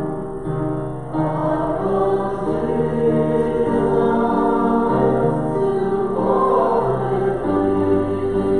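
A hymn sung by a group of voices with instrumental accompaniment, held notes moving from chord to chord.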